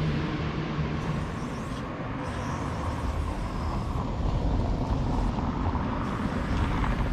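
Street traffic: cars passing, with a low rumble that grows from about four seconds in.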